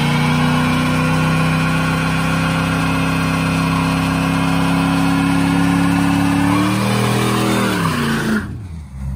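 A C4 Chevrolet Corvette's V8 held at high, steady revs during a burnout, under the hiss of the spinning rear tyre. About seven seconds in the revs waver and fall, and the noise cuts off sharply near the end.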